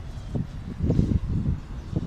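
Wind buffeting the microphone: a low, uneven rumble that swells and dips several times.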